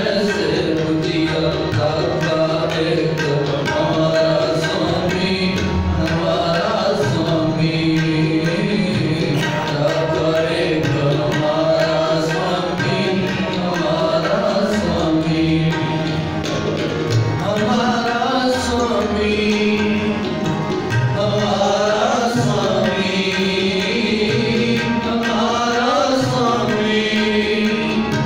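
Sikh kirtan: two harmoniums sustaining chords and melody under male voices singing a devotional hymn, with a tabla pair keeping a steady, busy rhythm.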